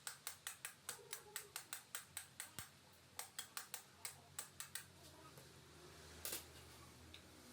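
A rapid series of sharp clicks, about five a second, in two runs separated by a short pause, followed by a brief hiss about six seconds in.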